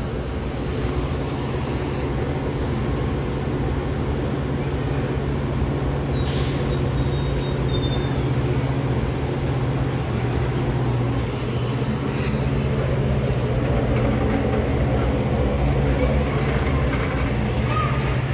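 Metra commuter train of bilevel gallery cars rolling past with a steady low drone and the rumble of wheels on rail. There are two brief sharp clanks, about six and twelve seconds in, with a faint high squeal just after the first.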